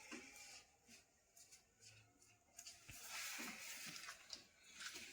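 Near silence: quiet room tone with faint rustling and a soft click.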